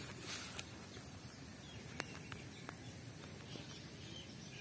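Faint outdoor background with a steady low hum, a short rustle just after the start and a few sharp small clicks about two seconds in.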